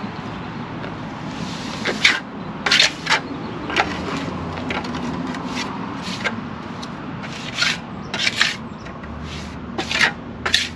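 A hand tool scraping over setting concrete in about a dozen short, irregular strokes, over a steady background hum.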